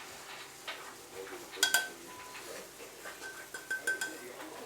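Light clinks of a spoon against a pan while apricot jam glaze is spooned over buns: a few small ringing taps, the clearest about a second and a half in and a quick run of them later on.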